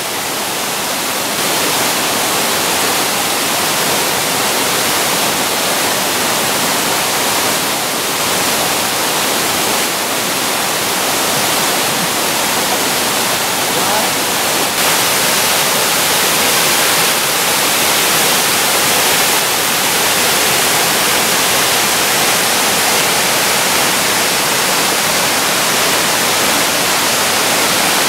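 Water cascading down a small tiered waterfall into a pool: a steady, even rushing.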